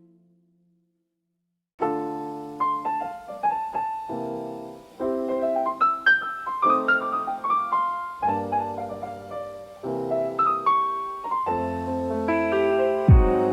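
Background piano music. It starts after about two seconds of silence, with lower bass notes joining near the end.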